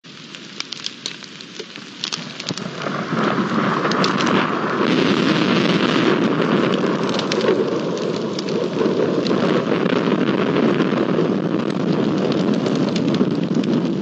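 Rain in a thunderstorm: scattered drops tapping at first, building over about two to three seconds into a steady heavy downpour.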